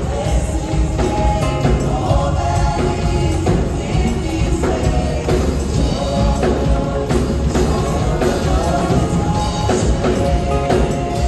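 Background music: a gospel song with a choir singing.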